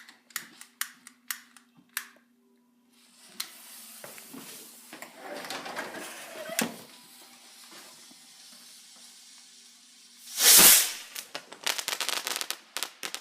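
A firework's fuse hissing for several seconds, then a loud bang as the firework launches from a pipe about ten seconds in, followed by a quick string of sharp pops.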